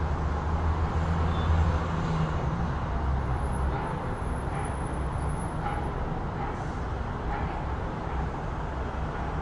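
City street traffic: a steady wash of road noise, with a motor vehicle's low rumble loudest in the first few seconds as it passes, easing off after about four seconds.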